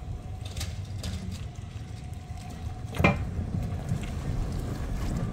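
A 1948 Karrier trolleybus with a Park Royal body drives past close by, giving a low rumble throughout. There is one sharp clunk about three seconds in, the loudest sound, as it draws level.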